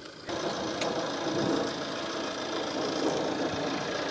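Tata Safari Storme's 2.2-litre Varicor 400 diesel engine running steadily close by, starting abruptly about a quarter second in.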